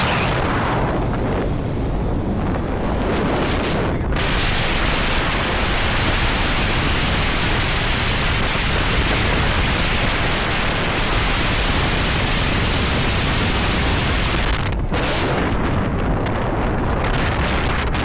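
Wind rushing over the microphone of a camera carried on a moving motorbike: a loud, steady roar of noise, going duller for a few seconds near the start and again near the end.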